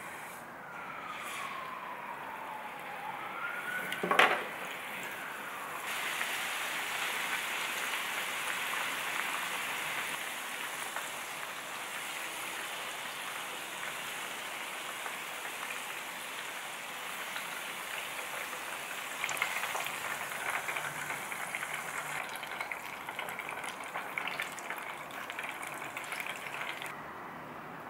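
Sweet potato fries deep-frying in oil in a small saucepan: a steady sizzle and bubbling from about six seconds in, crackling harder later on. About four seconds in comes a sharp knock, the loudest sound, and before it a faint whistling tone falls and then rises.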